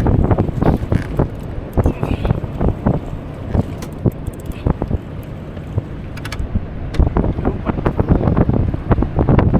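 Wind buffeting the microphone on a boat at sea: a loud, rough rumble with many scattered knocks and clicks.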